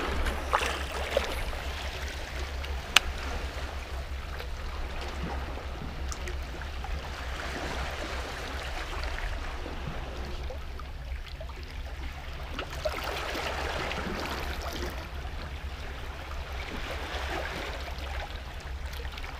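Shoreline sea water lapping, a steady hiss over a low rumble of wind on the action-camera microphone. A single sharp click about three seconds in.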